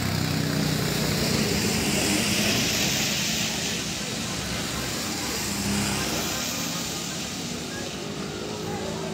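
Passing road traffic on a wet street: vehicle engines and tyre hiss, swelling as a truck goes by a few seconds in.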